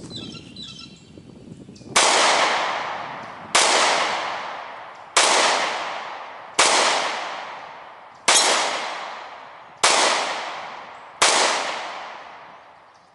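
Seven gunshots fired at a steady, unhurried pace, about one every second and a half, each sharp crack followed by a long fading echo.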